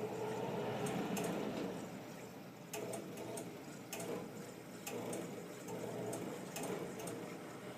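A machine whirring with irregular sharp clicks, about one every half-second to a second; the whirring is louder in the first two seconds.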